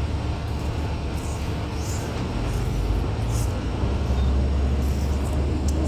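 Low, steady rumble of a moving public-transit vehicle heard from inside, with faint rattles, the rumble growing stronger about four seconds in.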